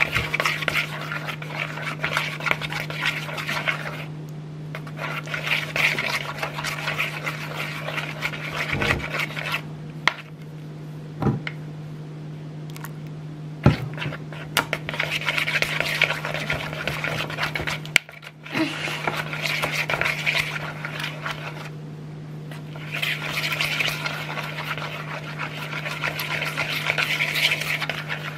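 Wooden stick stirring glue slime in a bowl just after activator is added, scraping around the bowl in stretches of several seconds with short pauses between. A few sharp knocks of the stick against the bowl, over a steady low hum.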